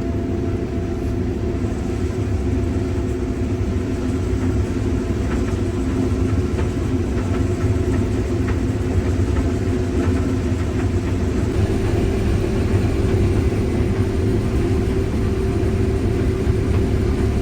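Combine harvester running steadily in a corn field: an even low drone of the engine and threshing machinery with a steady hum over it, heard from inside the cab.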